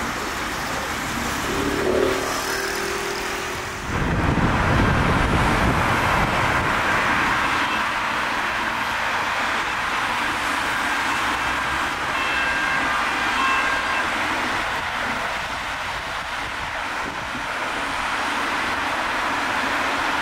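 Motorway traffic noise: cars and trucks passing in a steady rush of tyres and engines, with a short pitched drone about two seconds in. The rush gets fuller and louder from about four seconds in.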